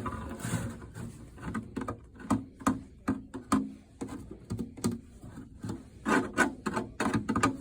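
Irregular knocks and rubbing, like objects or the phone being handled close to the microphone.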